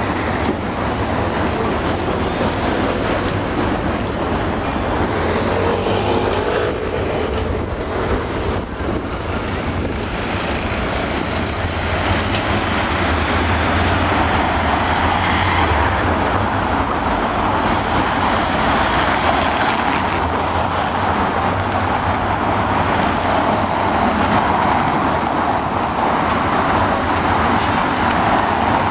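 Steady road traffic on a busy multi-lane city avenue: cars, vans and taxis driving past, a continuous mix of engine rumble and tyre noise.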